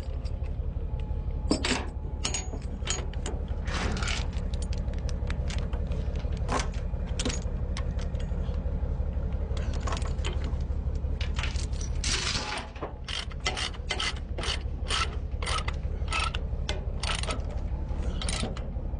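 Ratchet chain binder being cranked to tighten a tie-down chain, its pawl clicking in scattered runs and then at about two clicks a second near the end. A steady low hum lies underneath and drops away about two-thirds of the way through.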